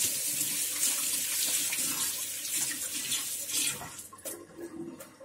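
Kitchen tap running into a sink with a steady splashing hiss, easing off about four seconds in. A few light knocks follow near the end.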